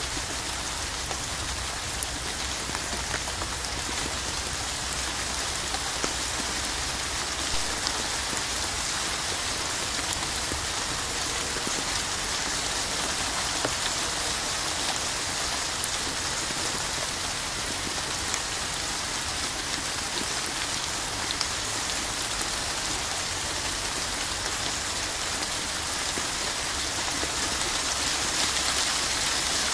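Steady rainfall: a continuous dense hiss of falling rain with scattered sharper drop ticks, growing a little louder near the end.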